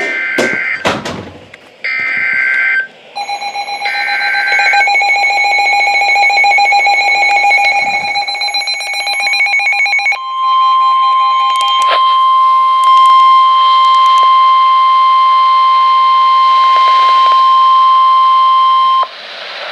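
NOAA Weather Radio Emergency Alert System tones. Three short warbling data bursts of the SAME header open it, and a second pulsing alert tone sounds over and after them. Then the steady single-pitch 1050 Hz warning alarm tone sounds for about nine seconds and cuts off, signalling that a warning message follows.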